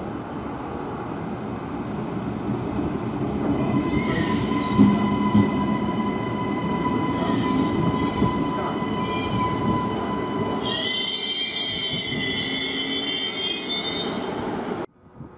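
Queensland Rail NGR electric multiple unit running into a platform: a rumble of wheels on the rails with a steady high tone over it, then a high squeal in several wavering tones from about ten seconds in as the train brakes. The sound cuts off abruptly near the end.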